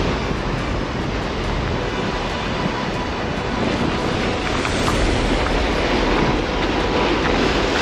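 Steady wind rushing over the microphone, with surf washing against the jetty rocks underneath.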